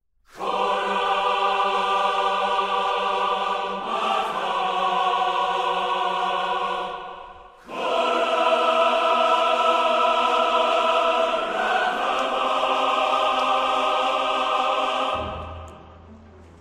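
Choral music in long held chords, the chord changing every few seconds with a brief dip about seven and a half seconds in; it stops about fifteen seconds in, leaving a faint low hum.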